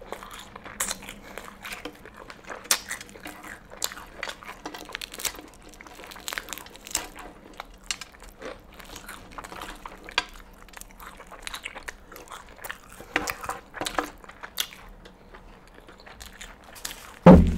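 Close-miked eating of Popeyes fried chicken: fingers pulling the crispy breading and meat off the bones, with chewing and crunching heard as many short clicks and crackles. Near the end comes one sudden loud low thump.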